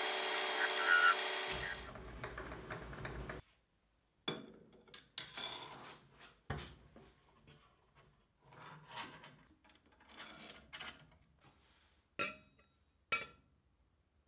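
Belt-driven metal lathe running for about the first two seconds, then dropping off and stopping. Then come scattered metal clicks and clanks of lathe parts being handled, with the change-gear cover opened and the gears exposed.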